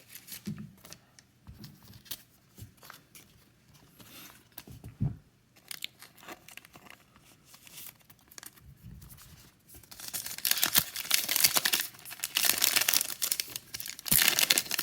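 Faint handling clicks and rustles of cards and plastic sleeves. About ten seconds in, a trading-card pack's foil wrapper is torn open and crinkled.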